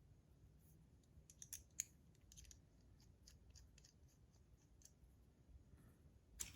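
Faint light clicks and small scraping ticks of a metal caliper sliding on small metal fidget parts, coming in a scatter of quick ticks in the first half and a few more later.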